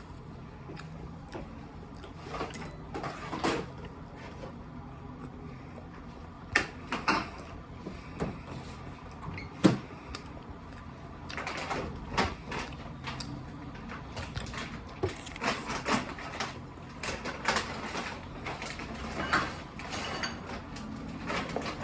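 Eating a Crunchwrap Supreme: irregular crunches, clicks and rustles from biting and chewing, scattered unevenly throughout.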